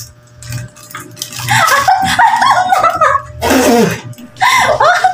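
People laughing and calling out in high, wordless voices, with a short noisy outburst about three and a half seconds in.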